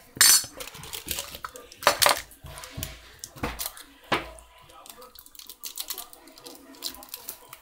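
Snack packaging being handled and torn open by hand, with several sharp clatters against a dish, loudest in the first four seconds and followed by softer crinkling and clicks.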